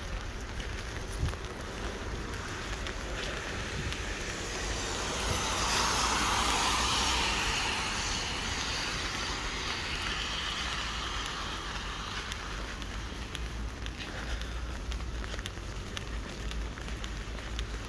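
Steady rain, with one car's tyres hissing on the wet road as it passes: the hiss rises about five seconds in, peaks, and fades away by about twelve seconds.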